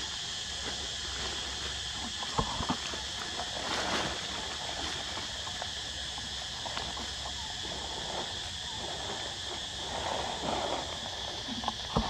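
Steady chorus of insects droning without pause, with a few short rustles and taps a couple of seconds in and again near the end.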